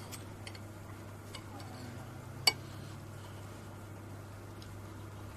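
Knives and forks clicking and scraping on plates as people eat, with one sharp clink about two and a half seconds in, over a steady low hum.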